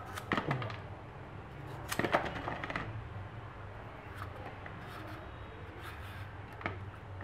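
A blade scraping the skin off a winter melon in short, irregular strokes, with light clicks as pieces of peel drop into a plastic basin.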